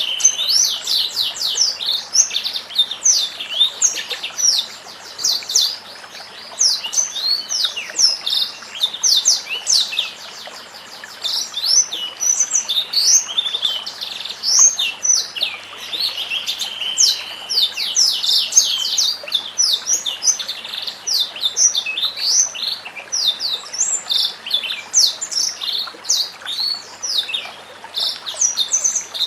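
White-rumped shama singing a continuous, rapid run of varied chirps and sweeping whistles, broken by a few longer held whistles near the start and about halfway through.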